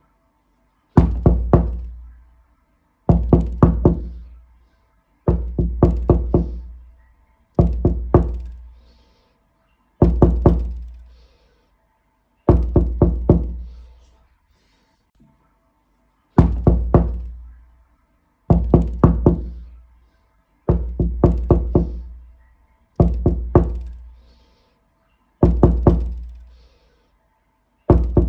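Knocking on a door in repeated bursts of three or four quick, deep knocks, a burst about every two seconds, with a longer pause about halfway through.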